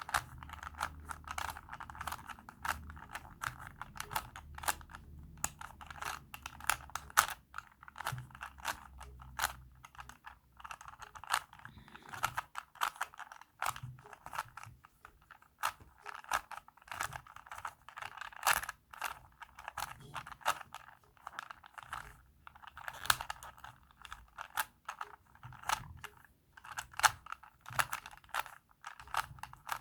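Plastic Rubik's Cube being turned by hand: quick runs of clicking and clacking as the layers snap round, with short pauses between runs, while the last layer is being solved.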